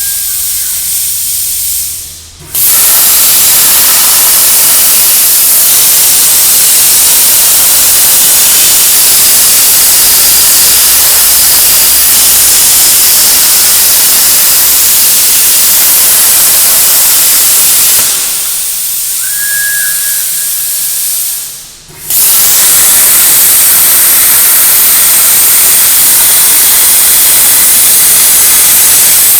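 CNC plasma cutting torch cutting, a loud steady hiss that starts abruptly twice. Between the two cuts it drops to a softer hiss, with a short high beep.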